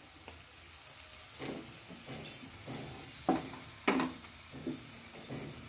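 Wooden spatula stirring and scraping tomato masala with freshly added chilli powder and turmeric in a nonstick kadai, in short irregular strokes starting about a second and a half in, over a faint sizzle of frying oil.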